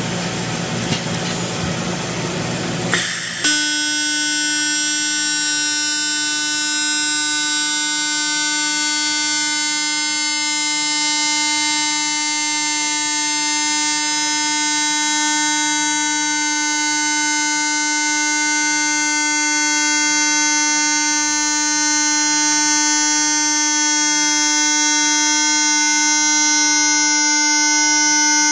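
Automatic TIG welding arc on a Jetline seam welder, fusion-welding stainless steel with no filler. A steady hiss gives way, about three seconds in, to the arc striking with a couple of clicks, after which a steady, high-pitched electric buzz holds unchanged.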